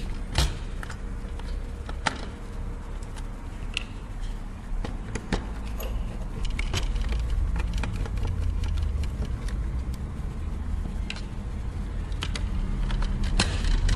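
Small metallic clicks and ticks of a screwdriver undoing small Phillips screws in a PS3 Blu-ray drive, and of the screws being handled and set down. A steady low hum runs underneath.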